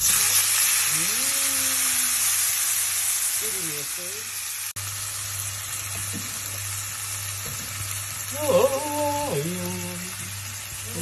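Chopped tomatoes hitting hot oil in a frying pan of fried onions. A loud sizzle starts suddenly as they go in, then settles into steady frying.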